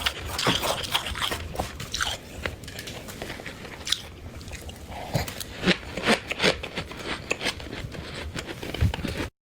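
Frost being bitten and chewed close to the microphone: a string of sharp, irregular crunches, with some scraping in the first two seconds, cutting off suddenly near the end.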